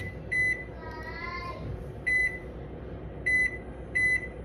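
Microwave oven keypad beeping as buttons are pressed: about six short, high beeps, the last four in quick, even succession.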